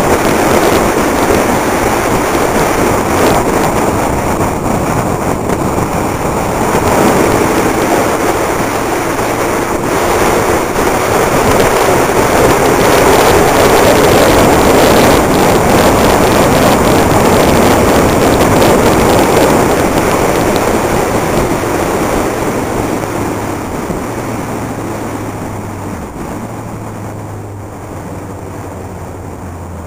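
Wind rushing over a motorcycle-mounted camera's microphone at road speed, with the motorcycle's engine running underneath. The wind noise eases over the last several seconds as the bike slows, leaving the engine's low, steady running more audible.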